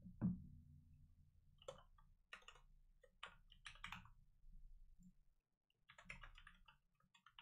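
Faint computer keyboard typing and clicks in scattered short clusters over a low steady hum, with one soft thump just after the start.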